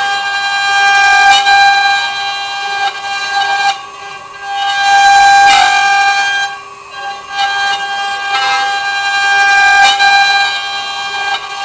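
CNC wood router running, its spindle giving a steady high-pitched whine that swells and fades every few seconds as the cutter works through the wood.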